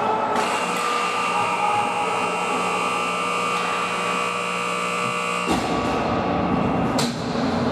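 Rink horn sounding one steady buzzing tone for about five seconds, then cutting off suddenly.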